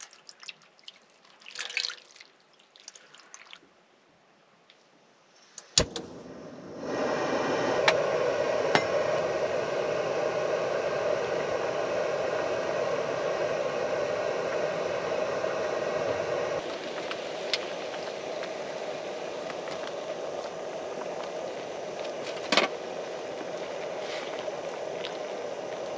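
A short pour of water from a bottle into a steel pan near the start. From about seven seconds in, sauce boils in a steel pan, a steady noise that steps down a little about halfway. A few sharp clinks of a utensil against the pan come near the end.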